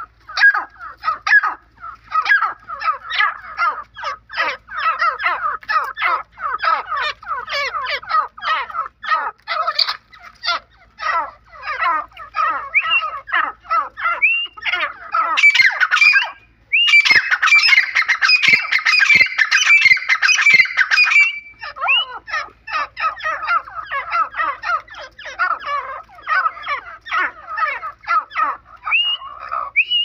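Grey francolins calling: a fast, continuous run of harsh chattering notes with short rising whistled notes now and then. Just after halfway the calling breaks off for a moment, then comes back louder and shriller for about five seconds.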